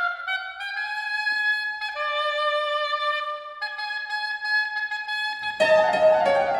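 Oboe playing alone: the top of a rising run, then three long held notes. About five and a half seconds in, the piano comes in loudly with fast, dense chords under the oboe.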